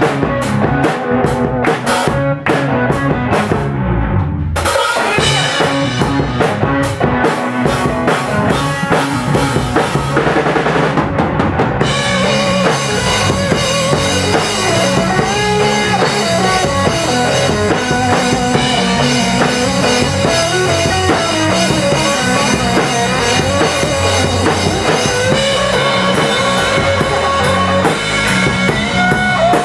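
Live rock band playing an instrumental passage of drum kit, bass and electric guitar, with no singing. The drums drive the first part, with a brief break about four seconds in. About twelve seconds in the band comes in fuller and louder, and an electric guitar plays held, bending lead notes over it.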